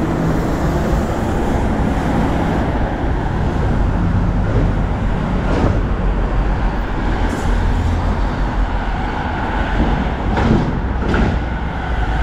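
Busy road traffic, a steady stream of motor vehicles passing close by.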